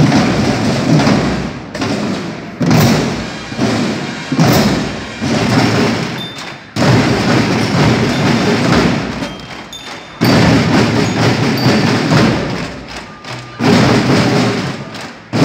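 Marching-band drums and percussion of a drum-and-bugle corps playing loudly, coming in surges that start suddenly and die away every second or two.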